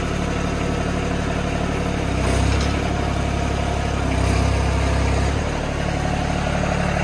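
Compact tractor's diesel engine idling steadily while the rear hydraulic remote is worked to move the hydraulic top link cylinder. The engine note deepens and grows louder twice, about two seconds in and again just after four seconds, as the hydraulics take load.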